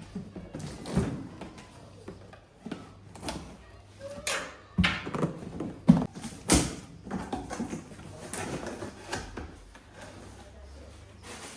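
A new vacuum cleaner being unboxed and handled: irregular knocks and thuds of its parts and packaging, with rustling in between.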